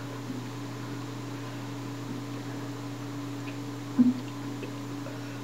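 Steady low hum and hiss of room tone in a small room, with one brief short sound about four seconds in.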